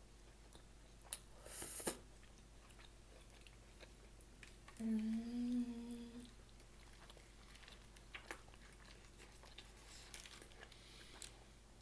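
A person eating close to the microphone: faint chewing clicks, a brief noisy burst about a second and a half in, and a closed-mouth 'mmm' hum of enjoyment lasting over a second about five seconds in.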